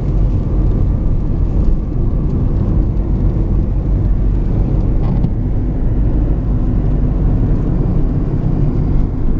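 Steady low rumble of a car driving, heard inside the cabin: engine and tyre road noise at cruising speed.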